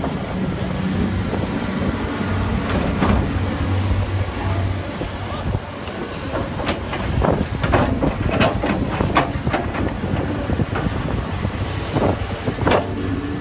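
Tracked excavator's diesel engine running steadily while it digs. From about six seconds in, a run of clanks and scrapes comes from the steel bucket, its teeth and linkage striking and dragging through dirt and rocks, with a last few knocks near the end.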